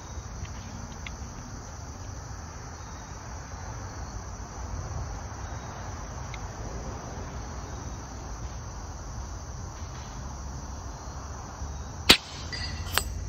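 A single sharp shot from a regulated .25-calibre AEA Challenger bullpup air rifle near the end, followed under a second later by a fainter metallic ping as the pellet hits an 8-inch steel gong at 65 yards. Before the shot there are only insects chirping over a low steady background.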